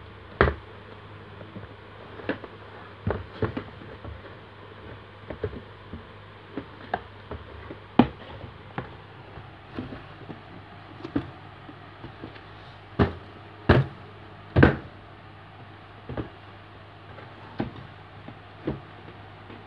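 Irregular knocks, taps and scuffs as a baby handles and bangs a cardboard box, with a few louder knocks around the middle, over a steady low hum.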